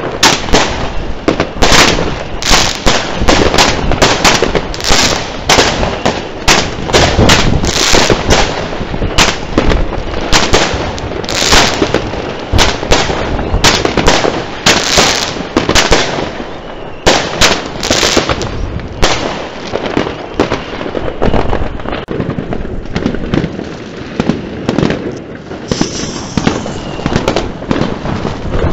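Fireworks going off in a continuous barrage, several sharp bangs and crackles a second from aerial shells bursting overhead. A short high whistle from a rocket or whistling shell sounds near the end.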